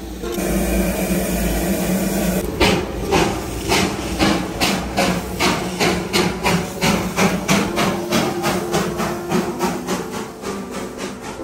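Steam hissing for about two seconds, then the sharp, regular exhaust beats of a Darjeeling Himalayan Railway B-class steam locomotive, quickening from about two to about four a second as it gets under way.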